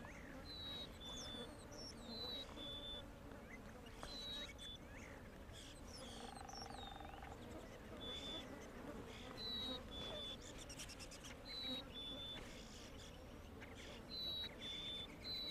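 Faint outdoor birdsong: a small bird repeats a clear two-note whistle, the second note lower, about every two seconds, among scattered other chirps. A short buzz comes about six seconds in.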